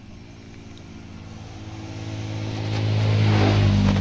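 A road vehicle's engine approaching, growing steadily louder to pass close by near the end.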